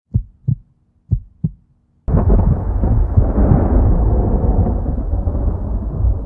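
Intro sound effect: two pairs of low heartbeat-like thumps, then a sudden loud boom about two seconds in that rumbles on and slowly fades, like thunder.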